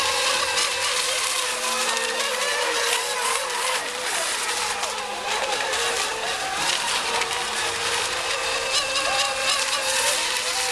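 Several electric RC racing boats running at speed together: a tangle of high motor whines that rise and fall in pitch as the boats pass and turn, over a steady hiss.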